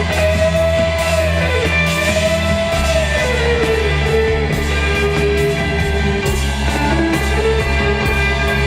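Psychedelic rock music with bass, drums and a held lead melody that slides up and down in pitch.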